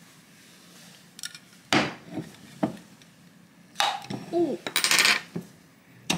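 A metal spoon prying and knocking at the metal screw lid of a glass jar to break its vacuum seal: sharp metallic clinks about two seconds in and again near four, then a noisy rasp around five seconds in as the lid works loose.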